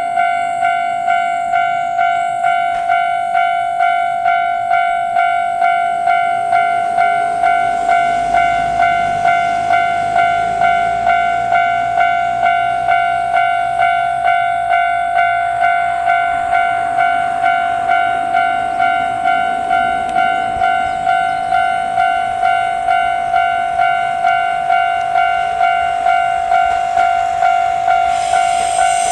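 Railway level-crossing warning bell ringing steadily, a repeated electronic ding about twice a second. Near the end the noise of a train rolling past rises under it.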